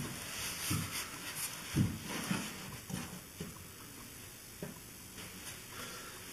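A plastic jerrycan-style oil drain container being handled and set in place, with several light knocks and scrapes in the first few seconds, then its plastic screw cap twisted off.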